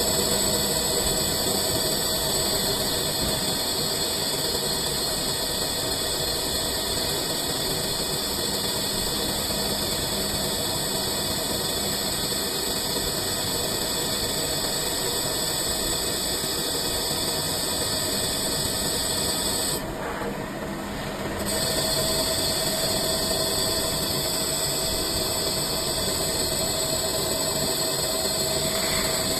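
CNC lathe running steadily, turning a hydraulic cylinder into a sphere, with a high cutting hiss over the machine noise. The hiss stops for about a second and a half around two-thirds of the way through, then resumes.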